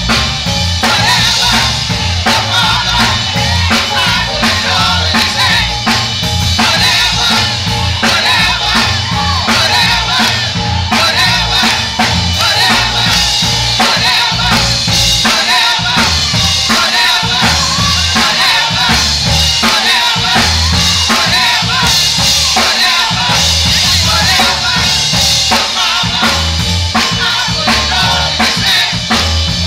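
Gospel choir singing with a live band: drum kit and bass under many voices, loud and continuous.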